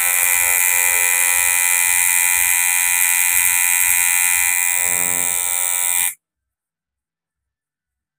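Coil tattoo machine buzzing steadily while its needle inks a line into the skin of a forearm. The buzz cuts off suddenly about six seconds in.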